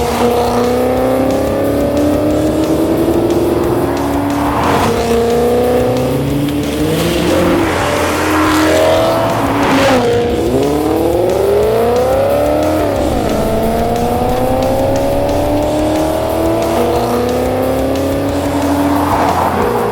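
Ford FG XR8's 5.4-litre Boss V8 through an X-Force VAREX exhaust, run hard so that the engine note climbs and then falls back several times at the gear changes, with the sharpest climb and drop about two-thirds of the way in.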